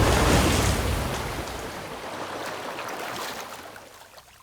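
A cartoon sound effect of a large rush of water sloshing and crashing, like a wave breaking. It is loudest at the start and dies away over a few seconds.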